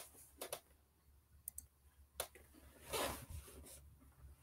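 Faint, scattered clicks: a couple about half a second in, more near one and a half and two seconds, and a short rustle about three seconds in, over a low steady hum.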